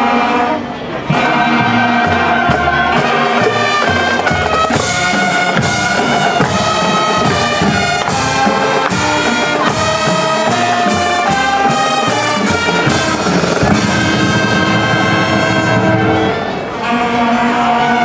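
School marching band playing loud brass chords (trumpets, trombones and tubas) over a regular drum beat, dipping briefly about half a second in and again near the end.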